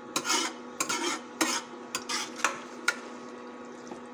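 Metal spoon stirring beef mince in an aluminium pot, scraping and knocking against the sides and bottom in irregular strokes. There are about six strokes in the first three seconds, then it goes quieter, over a steady low hum.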